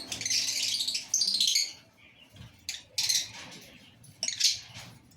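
Lovebirds calling in shrill, high chirps: a dense chatter of calls for the first second and a half or so, then short separate calls, one about every second.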